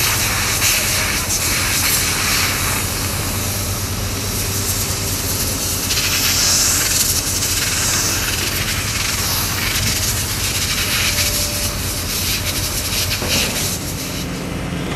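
Diesel engines of a Komatsu crawler excavator and a Volvo dump truck running in a steady drone with a hiss over it. A louder rush of noise swells about six seconds in, and the sound changes near the end.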